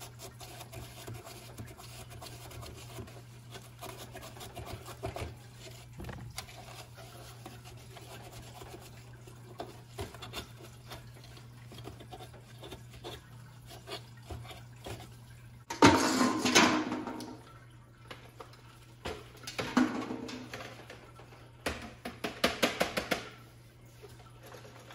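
A paper towel wiping and scrubbing out a plastic clock battery compartment: a faint, continuous rubbing over a steady low hum. About two thirds of the way through comes a sudden loud bout of handling noise as the clock is moved, then two shorter runs of clattering knocks.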